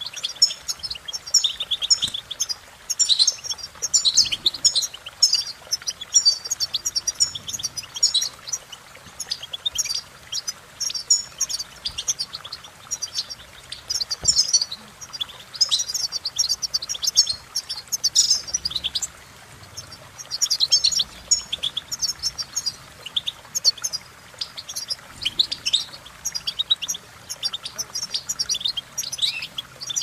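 European goldfinch singing: fast twittering phrases of high chirps and trills, broken by short pauses between phrases.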